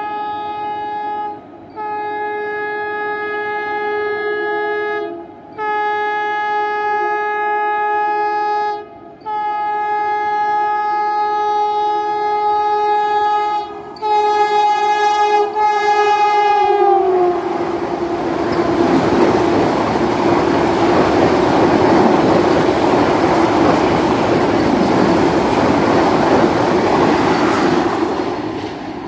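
Vande Bharat Express electric trainset sounding its horn in a series of long blasts with short breaks as it approaches, the last blast sliding down in pitch. Then the loud rushing noise of the train running through, with clattering wheels on the rails.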